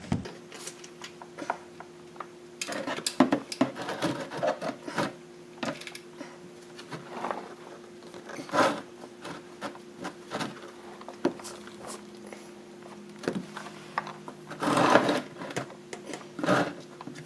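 Irregular clicks, clinks and scraping of tools and parts being handled under a car while getting ready for an oil change, over a steady low hum. The longest and loudest scrape comes near the end.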